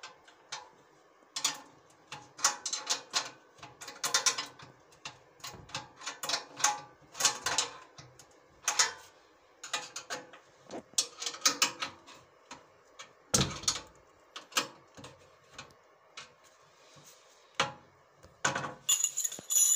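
Screwdriver working bolts into the steel legs and slotted crossbar of an industrial sewing machine stand: short bursts of rapid metallic clicking, with one heavier knock about thirteen seconds in.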